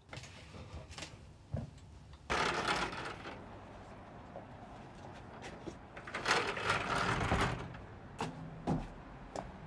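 A metal-framed sliding glass balcony door rolling open, then rolling shut a few seconds later, with a few clicks and knocks around it.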